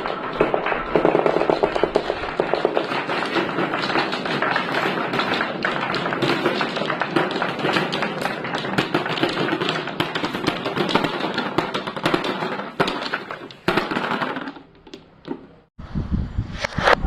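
Many marbles clattering and rolling down a plastic marble run track, a dense rapid clicking that thins out and dies away about fourteen seconds in. A different, louder, lower sound starts abruptly near the end.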